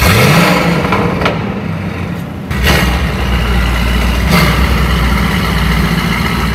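Brabus GLE 900 Rocket's twin-turbo 4.5-litre V8 revving up with a rising pitch, a few sharp cracks, then running with a deep steady rumble from about two and a half seconds in, echoing in an underground parking garage.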